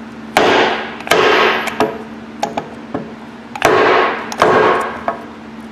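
Hammer blows on a wooden block, driving the worn anvil out of an Ingersoll Rand Thunder Gun 1/2" air impact wrench's front housing. There are four heavy strikes in two pairs, each ringing on briefly, with a few lighter taps between.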